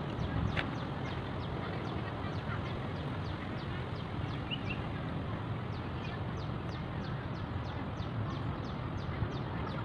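Steady wind rumble on the microphone, with a bird calling over it in a rapid run of short, falling chirps, about three a second.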